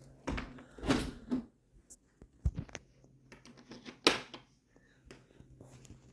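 A few scattered knocks and clicks, a door being opened and shut.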